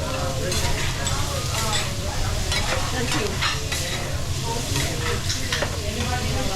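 Food frying and sizzling on a teppanyaki griddle as the chef stirs and turns it with metal spatulas, with scattered sharp clicks of the spatulas on the hot steel plate.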